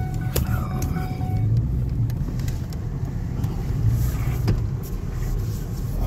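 Car cabin noise while driving: a steady low road and engine rumble, with a few sharp clicks and knocks from the phone being handled.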